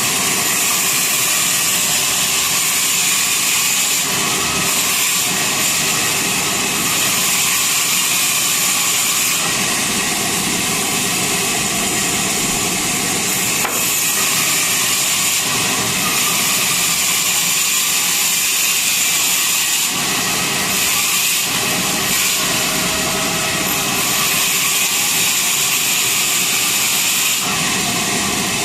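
Sawmill saw cutting through a hardwood log: a steady, loud, high-pitched sawing noise whose tone shifts slightly a few times as the cut goes on.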